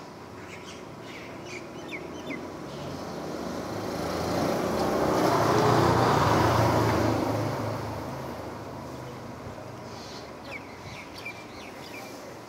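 A motor vehicle passing by on the road, its engine and tyre noise swelling to a peak about six seconds in and then fading away. Birds chirp briefly near the start and again near the end.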